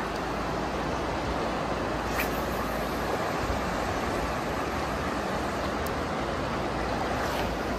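Steady rushing noise of a wide, fast-flowing river, with a few faint ticks.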